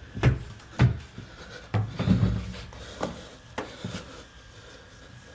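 About six heavy thumps and knocks in the first four seconds, the sound of gear or feet striking a hard surface, then quieter.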